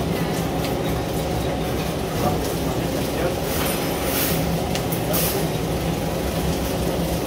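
Electric bowl-type vegetable cutter running steadily, its motor humming as the spinning bowl and blades chop whole tomatoes. A few short washes of hissing noise come through around the middle.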